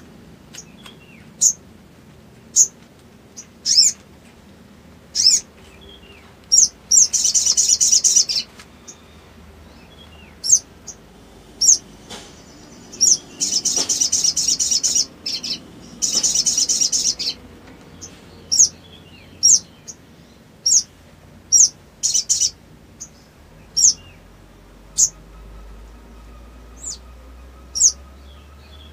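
Caged male sunbird (sogok ontong) calling: sharp high chirps about once a second, broken by three rapid twittering runs of one to two seconds each, about 7 s, 13 s and 16 s in.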